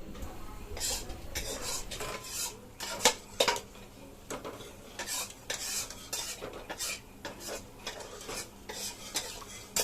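A metal utensil scraping and clinking in a frying pan as palm-fruit fritters are turned and lifted out of hot oil, in many irregular strokes with two sharper ringing clinks about three seconds in; the frying oil sizzles faintly underneath.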